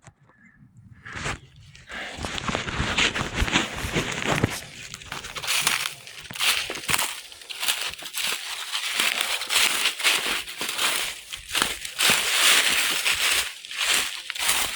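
Crunching and crackling of footsteps through dry leaves and brush, irregular and close, starting about a second and a half in.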